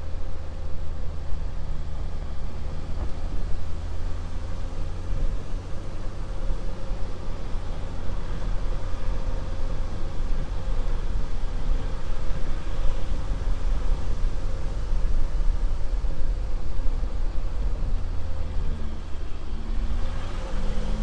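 Jeep Grand Cherokee CRD's V6 turbodiesel running at low speed as the SUV crawls along a dirt trail, with steady tyre and road noise. The engine note rises briefly near the end.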